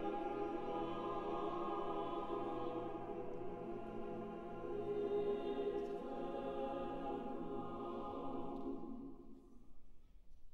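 Mixed choir holding a sustained chord that dies away about nine seconds in.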